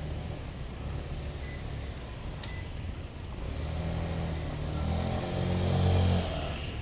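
A motor vehicle's engine running with a low hum, growing louder over a few seconds to a peak near the end, then dropping away.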